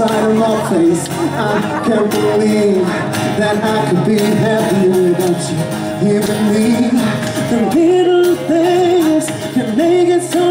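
A male singer singing a pop song live into a handheld microphone, amplified through a stage PA, over instrumental backing.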